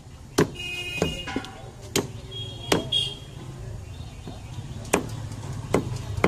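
Heavy butcher's cleaver chopping raw chicken on a wooden stump block: about six sharp chops at uneven intervals, over a low background rumble of street traffic.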